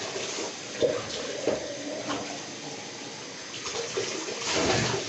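Bath tap running steadily into the tub, with a few small splashes and then a louder pour of water from a cup splashing into the tub near the end.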